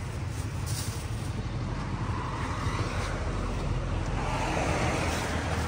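Road traffic going past: a steady low rumble, with a broad swell of vehicle noise that rises through the middle and fades again.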